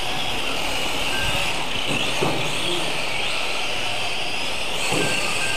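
Several mini radio-controlled cars racing on carpet, their electric motors giving a continuous high whine over tyre noise, with a few short beeps.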